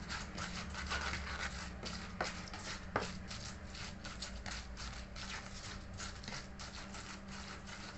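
Stone pestle grinding and knocking spice paste in a stone mortar (ulekan and cobek): a rapid, irregular run of knocks and scrapes, with two sharper knocks about two and three seconds in.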